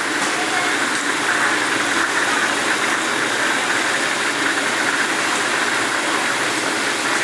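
Steady sizzling noise of a deep-frying station at a fried-chicken stall, with food frying in hot oil over a strong gas flame.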